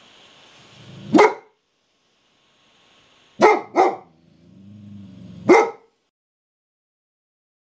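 A dog barking at a pigeon: four deep barks, one, then a quick pair, then one more, with a low growl leading into the last.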